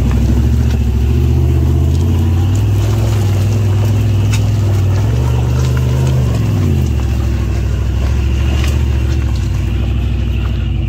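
Chevrolet SUV engine pulling under load up a steep loose-rock climb. The revs rise twice and then fall away about two-thirds of the way through, with a few sharp cracks of rock under the tyres.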